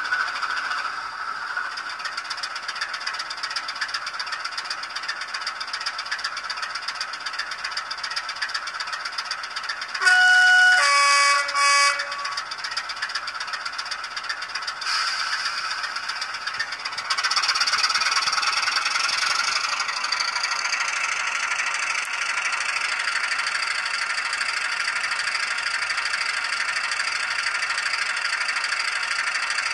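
DCC sound decoder in an N gauge Class 27 model playing a recorded Class 27 diesel engine through its small speaker, thin and without bass. The engine ticks over steadily, a two-tone horn sounds about ten seconds in, high note then low, and at around seventeen seconds the engine sound rises and stays louder as the locomotive powers up.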